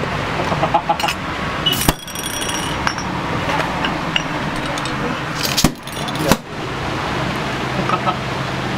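Codd-neck marble-stoppered glass soda bottles (goli soda) being popped open by pushing the marble down, giving sharp pops about two seconds in and twice more around six seconds in. A steady hum of street and shop noise runs underneath.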